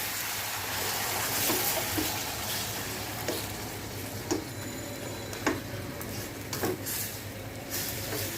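Chicken coated in yogurt and spice paste sizzling in hot oil while it is stirred in the pan, with short knocks and scrapes of the spoon against the pan every second or so.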